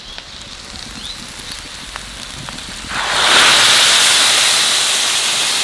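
Water poured into a hot kadai of fried, spiced peas and potatoes, setting off a sudden loud, steady sizzling hiss about three seconds in.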